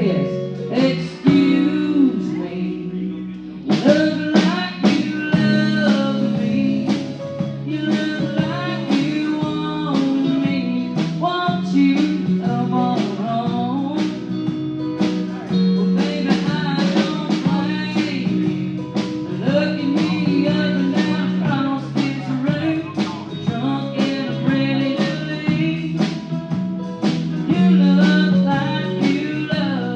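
Live country band playing an uptempo song, with guitar over a steady drum beat.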